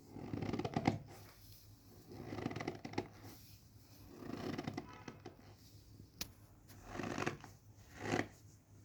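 Packed cornstarch squeezed over and over, giving a squeaky, crunchy creak about five times, each squeeze lasting under a second.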